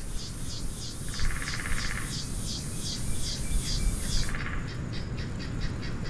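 Outdoor nature ambience: a high-pitched chirping that pulses about three to four times a second over a low rumble, with a short buzzing trill about a second in. The chirping turns faster and thinner about four seconds in.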